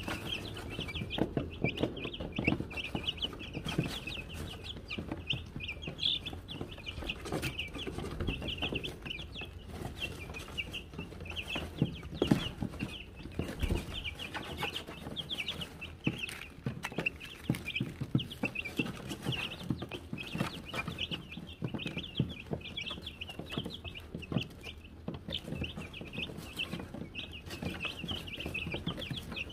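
A brood of young Wyandotte chicks peeping continuously, many short high chirps overlapping, with scattered soft knocks and rustles among them.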